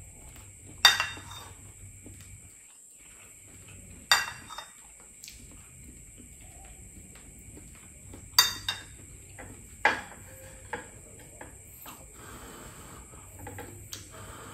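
Metal spoon clinking against ceramic dishes while eating: about half a dozen sharp, separate clinks, the loudest about a second in.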